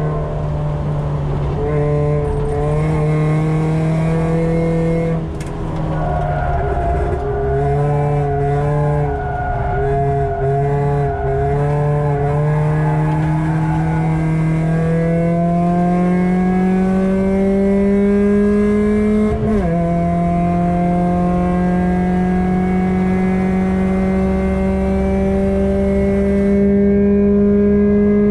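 1.7 Ford Puma four-cylinder engine with a decat Milltek exhaust, heard from inside the cabin of a Mk5 Fiesta at speed on track. The engine note wavers through a bend, then rises steadily under throttle, with a brief dip about two-thirds through before it climbs again.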